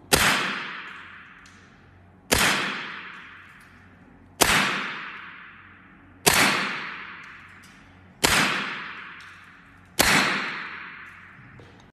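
A 2018 Evanix semi-automatic PCP air rifle in .25 calibre fires six shots about two seconds apart, each a sharp report that fades out slowly.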